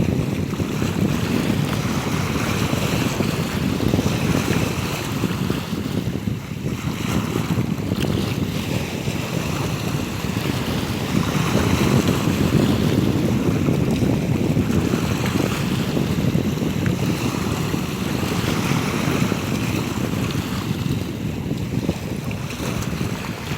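Wind rumbling on the microphone, with sea waves washing in underneath, steady throughout.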